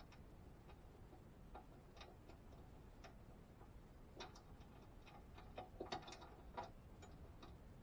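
Faint, irregular small clicks and taps as fingers handle and fit a part under the bandsaw's table. They come a few seconds apart at first, then in a quick cluster a little past the middle.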